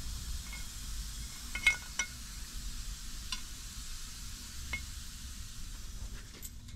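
New exhaust valves being slid into the valve guides of a Detroit Diesel 2-53 cylinder head: a handful of light metallic clinks, each with a brief ring, spaced a second or so apart over a faint hiss.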